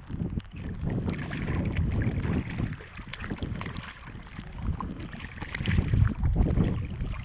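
Wind buffeting the microphone in uneven gusts, strongest about six seconds in, with water lapping at a small fishing boat's hull.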